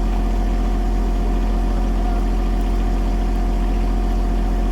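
Diesel engine of a John Deere compact tractor with a backhoe, running steadily at an even speed.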